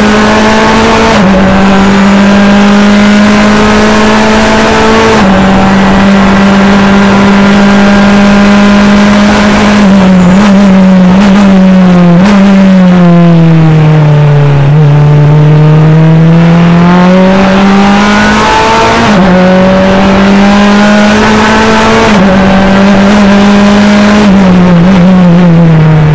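In-cockpit sound of an NP-01 prototype race car's Mazda four-cylinder engine under hard load, its note held steady at high revs. Around the middle the revs sag smoothly for a few seconds and climb back, and near the end they fall again as the car slows.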